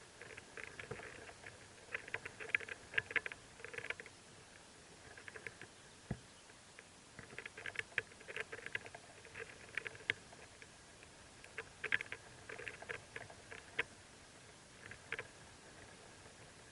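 Mockingbird nestlings begging: clusters of rapid, faint squeaky chirps, with several short bursts and pauses between them.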